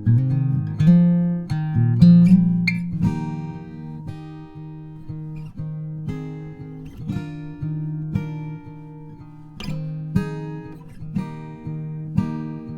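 Background music on acoustic guitar, with plucked notes and strums.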